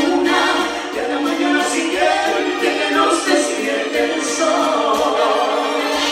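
Live dance-orchestra music: vocals sung over the band, with a steady beat.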